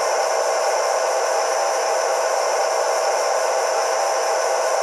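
Steady hiss with a constant mid-pitched hum from the sound decoder of an HO-scale Athearn rotary snow plow model, played through its small speaker.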